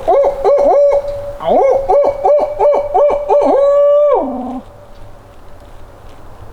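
A man's mouth-voiced imitation of a barred owl, two rhythmic phrases of swooping hoots, the second ending in a long drawn-out note that drops. It is an owl locator call, used to make gobblers shock-gobble.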